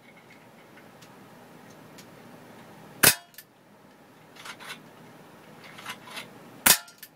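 Sig Sauer P320 CO2 air pistol firing two sharp shots about three and a half seconds apart, with a few fainter clicks between them.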